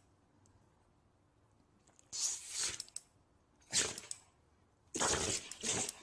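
A dog sneezing several times in a row, short sharp breathy bursts starting about two seconds in and coming roughly every second after that.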